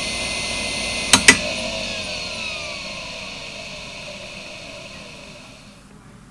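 Seagate ST9144A 128MB 2.5-inch IDE hard drive (3450 rpm, three platters) whining steadily at idle. About a second in come two sharp clicks as it powers down. Its whine then falls in pitch and fades as the platters spin down.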